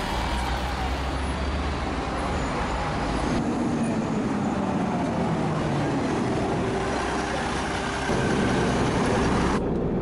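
Motor vehicle engines and traffic noise, with engine pitch rising and falling. The sound changes abruptly a few times, as short clips are cut one after another.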